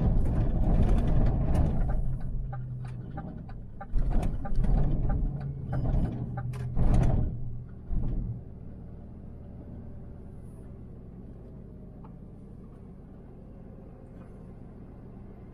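Lorry engine and road noise heard from inside the cab as it slows into a truck park, with a cluster of short loud bursts and knocks about four to eight seconds in, then the engine running low and steady at crawling speed.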